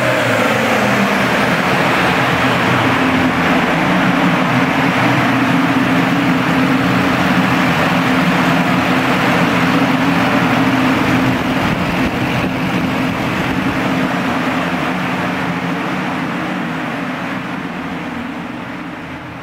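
Duramax 6.6 L V8 turbo-diesel running at a steady speed on a chassis dyno, a constant engine hum over a steady rushing noise. The sound fades away gradually through the second half.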